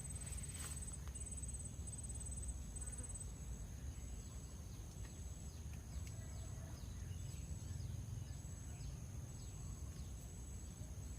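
Outdoor ambience: a high-pitched insect trill repeating in short, even pulses over a steady low rumble, with a few faint chirps in the middle.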